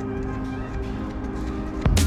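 Background music with steady held notes, and a sharp loud hit near the end.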